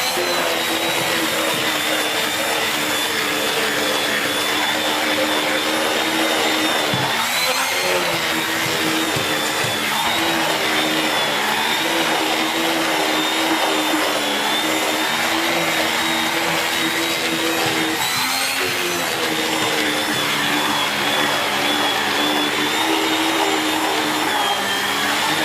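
SEBO Felix bagged upright vacuum cleaner running, drawing air through its extension hose and air-driven mini turbo brush: a steady motor hum with a high whine. The pitch dips and shifts briefly three times as the airflow through the nozzle changes.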